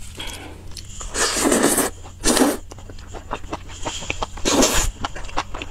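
A woman blowing air out hard through pursed lips three times, about a second in, just after two seconds and near the end, huffing at the heat of spicy food. Between the blows come many small wet chewing clicks and mouth smacks.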